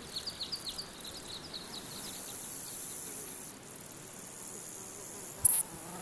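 Outdoor insect and bird sounds: a small bird's run of quick, falling chirps over the first second and a half over a steady high insect hiss, then a short, loud, high-pitched insect buzz about five and a half seconds in.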